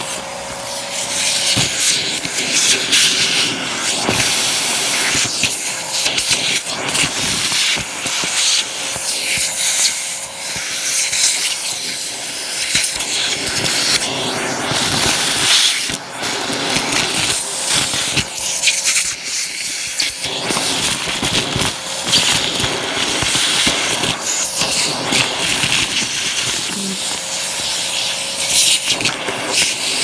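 Vacuum cleaner with a crevice tool sucking up a pile of dirt and grit from cardboard: steady rushing suction, full of rattling clicks as grit and small debris are pulled up the hose.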